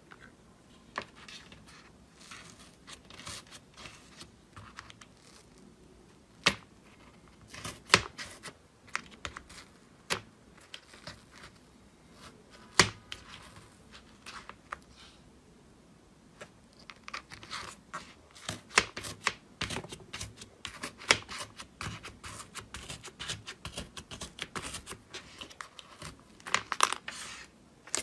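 Two-colour iceberg slime, its dried crust cracking as fingers press into it and pull pieces out of a plastic compartment box: sharp crackles and pops, sparse at first and coming thick and fast in the second half.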